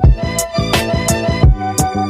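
Background music with a steady drum beat under a held melody.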